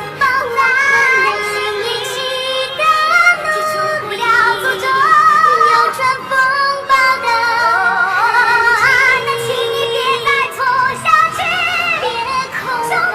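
Female singing in Mandarin over musical backing, the voices treated with a pitch-shifting 'angel' effect, held notes wavering with vibrato.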